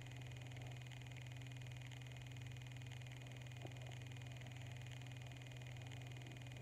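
Quiet room tone: a steady low hum and hiss, with one faint tap about three and a half seconds in.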